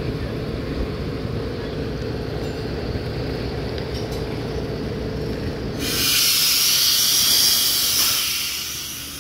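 A diesel bus engine idling with a steady low rumble. About six seconds in, a loud hiss of compressed air bursts out of a bus's air system and fades away over about two seconds.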